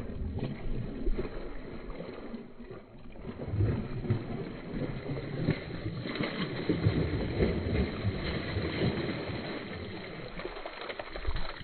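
A hooked snakehead fish thrashing at the water's surface, with irregular splashing that grows louder about four seconds in.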